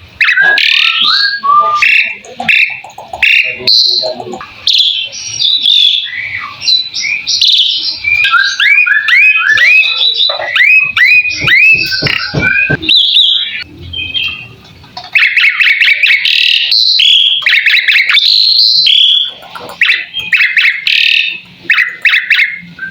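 Asian pied starling (jalak suren) singing a long, varied song: fast chattering whistles, squeaky chirps and clicks, with a run of repeated rising whistled notes in the middle and a few brief pauses.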